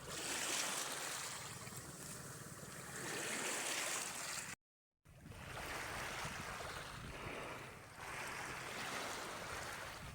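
Sea waves washing and surging, swelling and easing every few seconds. The sound drops out completely for about half a second near the middle.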